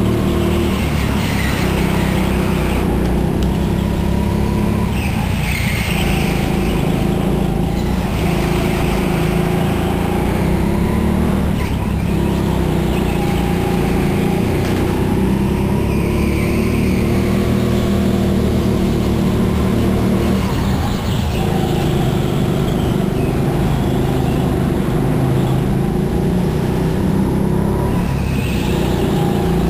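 Indoor racing kart heard onboard at racing pace, its engine note running continuously and repeatedly dipping and climbing in pitch as it brakes into corners and accelerates out.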